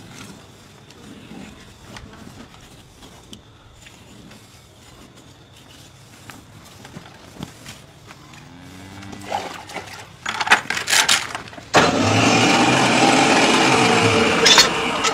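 Low outdoor background with faint handling sounds, then a few sharp knocks. About twelve seconds in, an engine starts and runs loudly and steadily.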